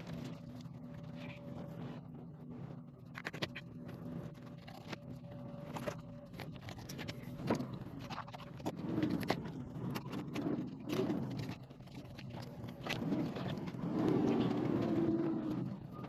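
Fillet knife cutting and scraping through a grouper on a plastic cutting board, a string of irregular clicks and scrapes as the blade works through the flesh and along the bones. A steady low hum runs underneath.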